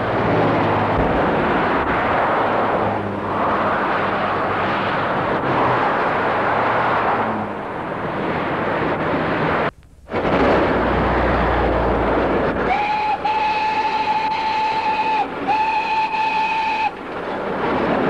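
Steady road-traffic noise, then a steam roller's whistle blown twice near the end: a steady single-note blast of about two and a half seconds, then a shorter one.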